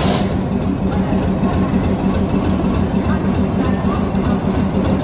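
Locomotive standing at rest, coupled to its coaches, running with a steady low engine hum.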